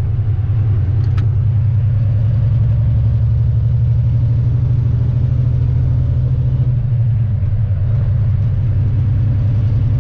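Volvo VNL semi truck's diesel engine running as a steady low drone, with a short click about a second in.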